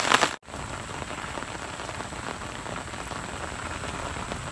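Heavy rain falling steadily onto puddled ground and standing water. The sound cuts out for an instant about half a second in, then the rain continues unchanged.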